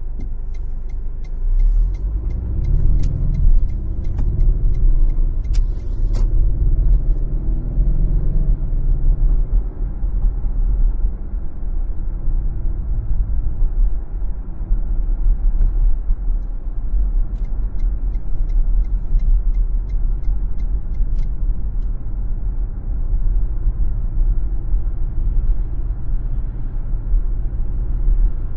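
A car driving, heard from its dashcam: a steady low road and tyre rumble. The engine note rises twice in the first ten seconds as the car accelerates.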